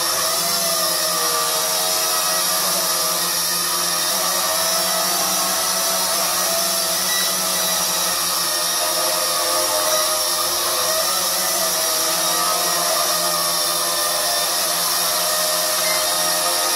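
JDRC JD-20S mini quadcopter's motors and propellers whining steadily as it hovers, the pitch wavering slightly as the motors adjust to hold position.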